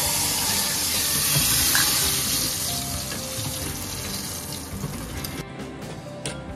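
Tadka of hot oil with cumin seeds and asafoetida sizzling on yogurt raita: a loud hiss that dies away after about five seconds.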